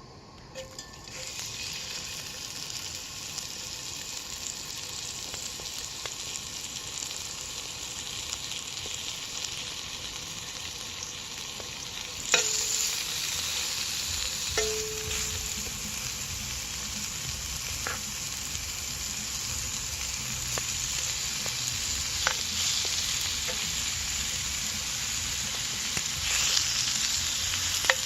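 Food sizzling steadily in a hot frying pan, growing slightly louder, with a few sharp clicks and taps, the loudest about twelve seconds in.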